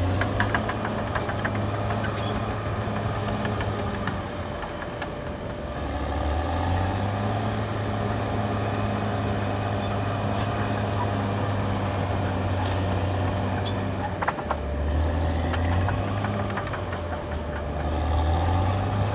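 Caterpillar D6R XL crawler bulldozer's diesel engine running under load, its pitch shifting up and down several times as the engine speed changes. Sharp metallic clicks and clanks sound over it, most of them in the first couple of seconds and again about fourteen seconds in.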